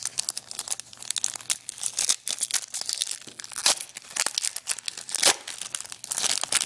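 Trading-sticker pack wrapper being torn open and crinkled by hand, a run of irregular crackling and tearing.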